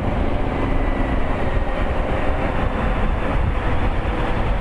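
Suzuki V-Strom 1000 motorcycle under way at steady speed: its V-twin engine runs under a steady rush of wind and road noise.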